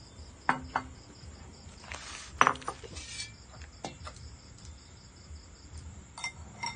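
Crickets chirping steadily in a rapid, even pulse, over several sharp clinks of metal and crockery, the loudest about two and a half seconds in.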